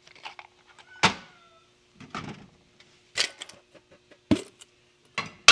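Several separate knocks and clanks of hard objects being picked up and set down, about one a second; one leaves a brief metallic ring. A faint steady hum runs underneath.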